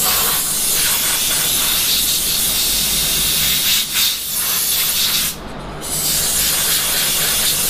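Compressed-air blow gun blasting metal chips out of a CNC mill's vise jaws: a loud steady hiss that stops about five seconds in and starts again half a second later.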